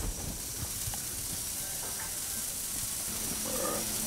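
Snook fillets sizzling on a hot gas grill grate: a steady hiss.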